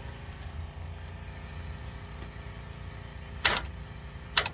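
Steady low background rumble, with two sharp clicks about a second apart near the end.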